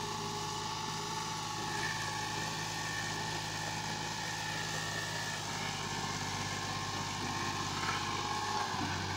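A farm tractor's engine runs steadily as it hauls a loaded trolley across a ploughed field, with a steady whine above the engine hum. Just before the end the engine note shifts.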